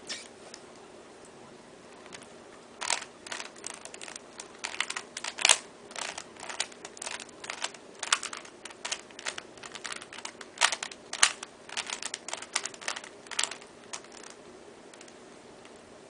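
A loose plastic Rubik's cube being turned by hand, its layers clicking and clacking in quick irregular runs from about three seconds in until a couple of seconds before the end.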